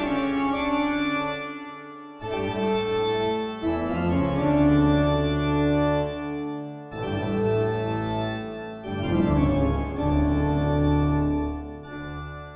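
Music of held, sustained chords that change every couple of seconds, with short breaks about two and seven seconds in.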